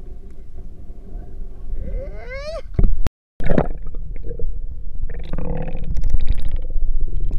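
Seawater heard from a camera plunged under the surface: the sound cuts out for a moment about three seconds in, then returns as loud, muffled underwater gurgling and sloshing.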